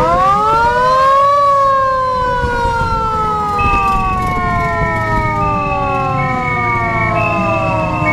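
A siren wails, rising in pitch for about a second and then falling slowly for several seconds. From about three seconds in, a second, higher siren alternates between two tones, hi-lo, under a steady vehicle running sound.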